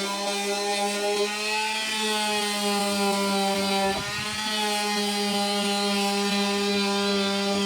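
Electric power sander running steadily against painted wooden drawers, a constant motor hum whose pitch wavers slightly as it is worked over the wood, with a brief knock about four seconds in.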